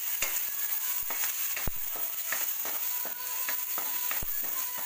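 Sliced onion and garlic sizzling in hot oil in a stainless steel wok, with a steady hiss. A wooden spatula stirs them, scraping and knocking against the pan many times.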